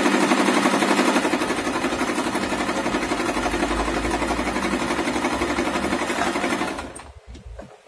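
Singer Simple 3232 portable sewing machine running steadily, its needle stitching rapidly as it sews a decorative pattern stitch at a very short stitch length of 0.5. It stops about seven seconds in, followed by a few faint clicks.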